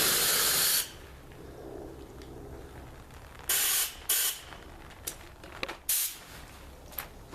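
Blasts of compressed air from a 150 psi air compressor's hose: a loud hiss that cuts off just under a second in, then two short blasts about three and a half and four seconds in, and a brief puff near six seconds.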